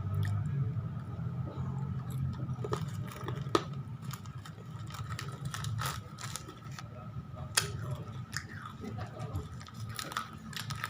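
Crunchy spicy chips (keripik pedas) being bitten and chewed close to the microphone: irregular sharp crunches, over a steady low hum.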